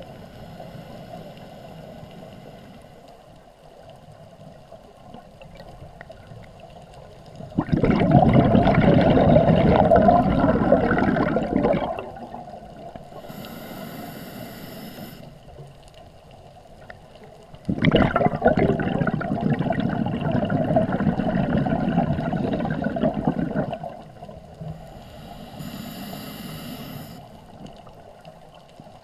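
Scuba diver breathing through a regulator underwater. Exhaled bubbles rush out in two long, loud gurgling bursts of several seconds each. Each burst is followed by a shorter, thin hiss of inhalation through the regulator.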